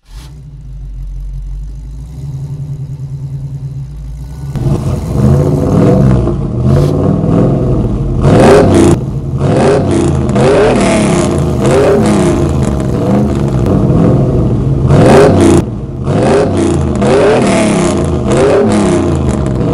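Car engine rumbling low at first, then from about four and a half seconds in revved hard over and over, its pitch rising and falling with each rev, with a few sharp hits in between.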